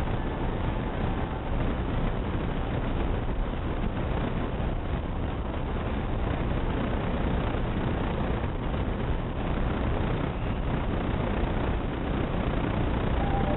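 Steady hum and noise inside a JR East 209 series 2000-subseries electric commuter train standing at a station platform.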